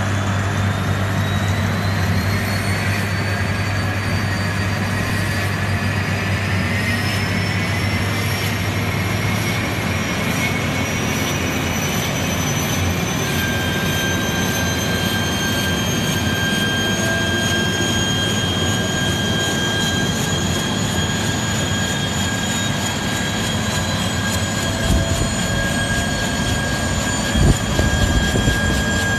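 Bell AH-1J Cobra's turboshaft engine starting up: a turbine whine climbs steadily in pitch, and about halfway through a steady high whistle joins it. Low rumbling thumps build near the end as the main rotor begins to turn.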